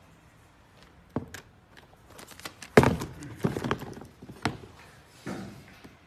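Handling noises of a leather sneaker being put down onto a cardboard shoebox: a loud thunk about three seconds in among scattered clicks and knocks.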